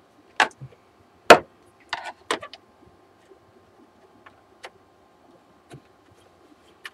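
Sharp plastic clicks and pops from the snap-in clips of a Samsung SyncMaster 226BW LCD monitor's back cover as a screwdriver pries it open. Several loud snaps in the first two and a half seconds, the loudest about a second in, then a few faint scattered ticks.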